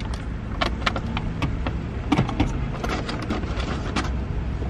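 Scattered clicks and rustles of a plastic iced-drink cup and paper takeout bag being handled inside a car, over a steady low rumble of the car idling.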